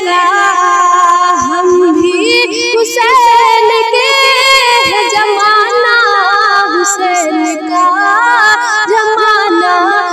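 A high female voice singing an Urdu naat, drawing out long, wavering melismatic notes with few clear words.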